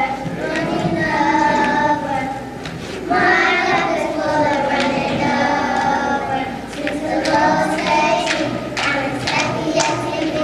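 A children's choir singing together in sustained phrases, with several sharp clicks in the second half.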